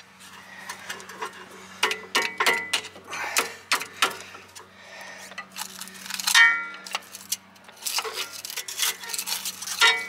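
Steel tools clicking, scraping and knocking against a rear brake pad that rust has wedged in its caliper bracket as it is pried loose. Some strikes ring briefly like struck metal, most clearly about six seconds in and again near the end.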